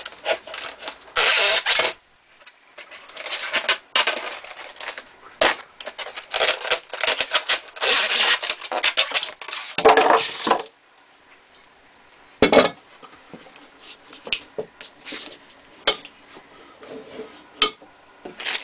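Styrofoam packaging rubbing and scraping in several bursts as a case trimmer is worked out of its foam insert. Then comes a single sharp knock about twelve seconds in, followed by light handling clicks.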